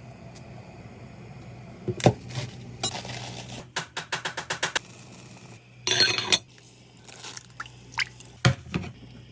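Kitchen clatter of cookware and utensils: a few clinks and knocks, a quick run of about seven ticks, a short noisy burst and two sharp knocks near the end, over a low steady hum.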